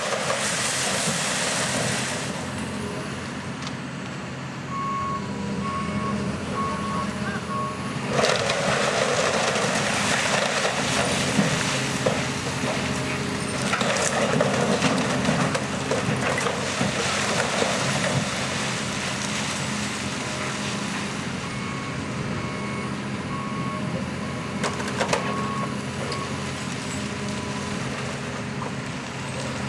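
Heavy demolition machinery running steadily, its reversing alarm beeping in two spells, with bursts of crunching and breaking wood as the ride's structure is torn apart, loudest in the middle stretch.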